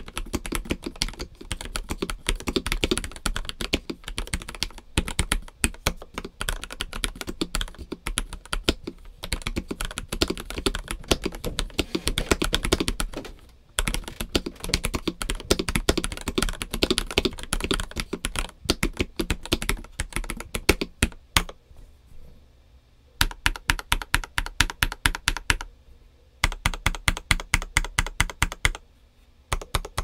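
A stock ProtoArc x RoyalAxe R68 65% mechanical keyboard being typed on quickly and continuously. About two-thirds of the way in it changes to short runs of evenly spaced single key presses, about five a second, with brief pauses between runs.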